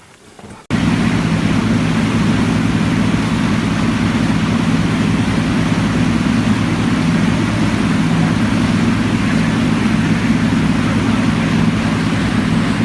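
Electric bilge pump switched on about a second in, its motor running with a steady hum.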